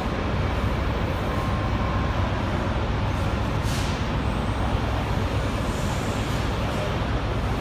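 Electric motors and a pump inside a running vertical form-fill-seal packing machine: a steady mechanical running noise with a deep hum.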